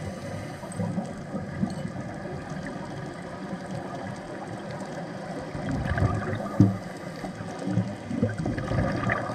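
Underwater noise picked up while diving: a muffled, gurgling wash of water with scattered dull knocks, the loudest about six and a half seconds in.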